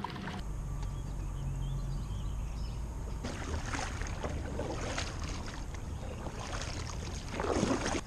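Double-bladed kayak paddle dipping into the river on alternate sides, each stroke a short splash of water, about four strokes in the second half with the last the loudest. A steady low rumble runs underneath.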